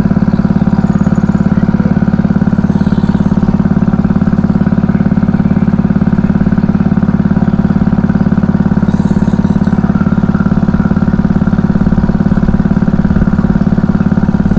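A small engine running at a steady speed with a fast, even chugging beat that does not change.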